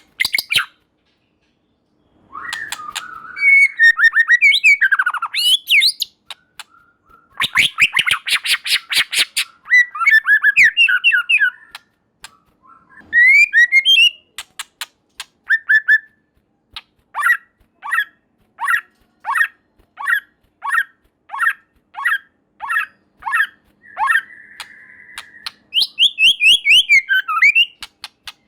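White-rumped shama (murai batu) singing in loud, varied phrases: gliding whistles mixed with harsh rasping chatter, and later a run of sharp repeated notes about two a second, with brief pauses between phrases.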